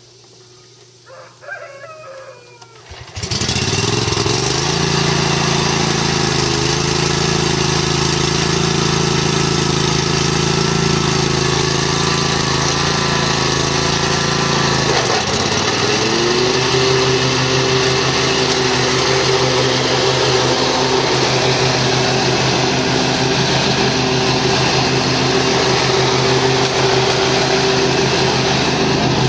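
A 2005 Exmark Viking 48-inch hydro mower's 15-horsepower engine starts about three seconds in and runs steadily. About halfway through, its speed dips briefly, then rises to a steady, higher pitch.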